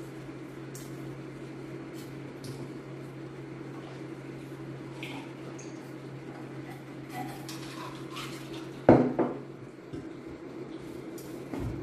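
A drinking glass knocked down onto a table about nine seconds in, the loudest sound, among scattered small clicks of eating and handling food, over a steady low hum.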